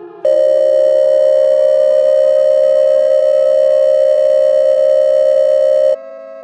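Emergency-alert style electronic siren tone: a loud steady tone with many overtones starts about a quarter second in, with a faint tone rising in pitch beneath it at first. It drops suddenly to a quieter held tone near the end.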